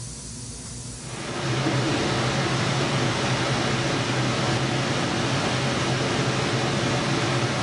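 3Shape E2 desktop dental scanner running while it scans a stone model: a steady hum under an even hiss, starting about a second in.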